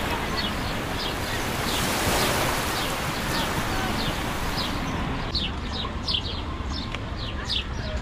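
Surf and wind noise with a bird repeating a short, falling chirp about twice a second. The rush of noise thins out about five seconds in, leaving the chirps clearer.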